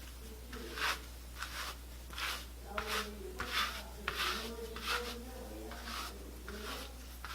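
A comb raking through a wig's hair in quick repeated strokes, about two a second, each a short dry scratch.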